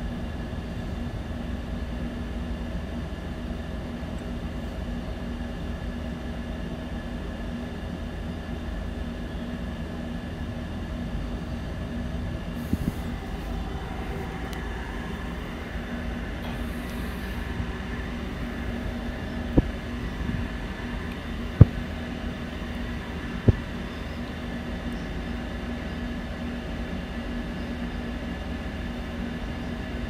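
A steady low mechanical hum with a constant pitch runs throughout, and a few short sharp knocks come about two-thirds of the way through.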